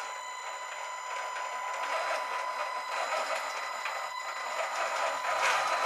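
Small gear-driven winch on a scale RC model tractor, run off its transmission, whirring steadily under heavy load as it hoists a steel model excavator. It gets a little louder near the end.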